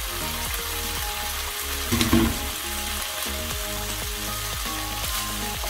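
Chicken livers sizzling in a frying pan, a steady crackling hiss, with one brief louder noise about two seconds in.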